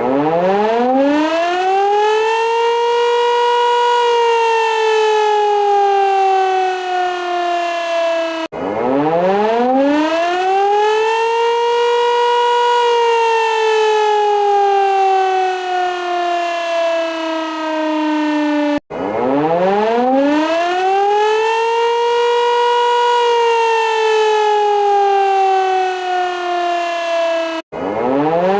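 Civil defense warning siren winding up in pitch over about three seconds, holding briefly, then slowly winding down until it cuts off abruptly and starts again. Three full rise-and-fall cycles, with a fourth starting near the end.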